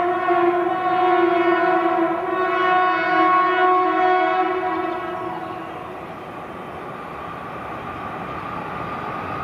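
WAP-4 electric locomotive's horn sounding one long, steady blast that stops about five seconds in. The rolling noise of the passing passenger train carries on after it.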